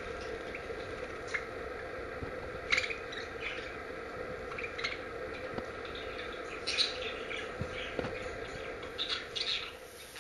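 Budgerigars giving scattered short chirps, a few seconds apart, over a steady low hum.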